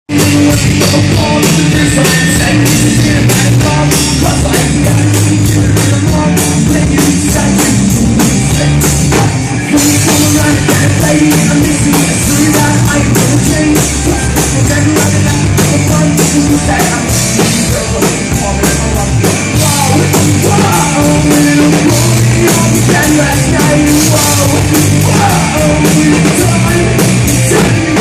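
Rock band playing live on a loud sound check: full drum kit, bass and guitars, with some singing.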